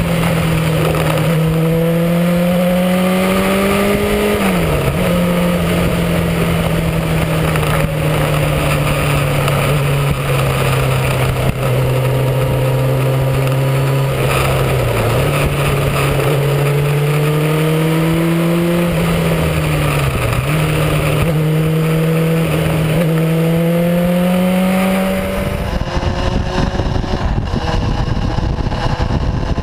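Motorcycle engine heard from on board while riding, its note climbing and easing with the throttle and dipping briefly at gear changes, about four, fifteen and twenty seconds in, over a steady rush of wind noise. Near the end the sound turns quieter and duller.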